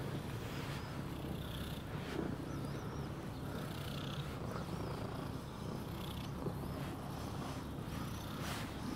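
Domestic cat purring steadily as it is stroked.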